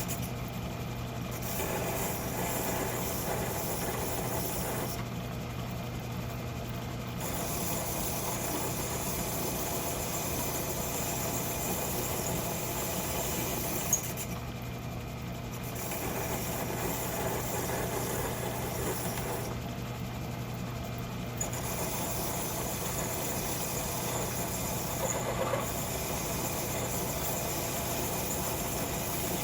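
Metalworking lathe running as it turns a metal part, a steady motor hum under cutting noise, with a sharp click about 14 seconds in.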